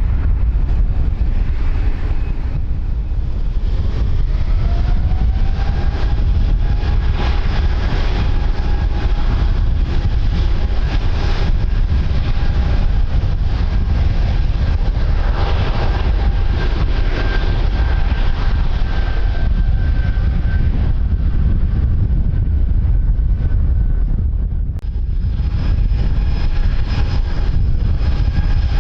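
Strong wind buffeting the microphone, with an airliner's engine whine rising in pitch several seconds in and then holding steady.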